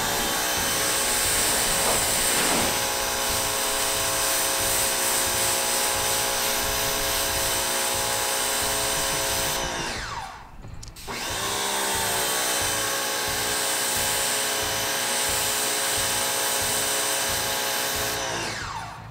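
Electric pressure washer rinsing a car windshield: the motor winds up to speed and runs steadily under the hiss of the water spray. It winds down and stops about ten seconds in, starts again a second later, and winds down again near the end.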